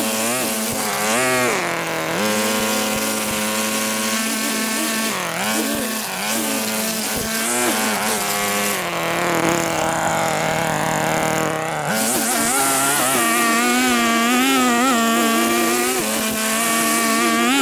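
Small petrol engine of lawn-cutting gear running at high revs. Its pitch dips and recovers several times, steadier only in the last few seconds, as the load changes while it cuts long, wet grass.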